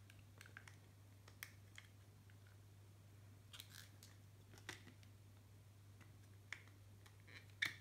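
Faint, irregular clicks and taps of a clear plastic phone case being pressed and snapped onto an iPhone 14 Pro, over a steady low hum.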